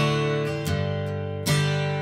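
Background music: strummed acoustic guitar chords, a new strum about every three quarters of a second.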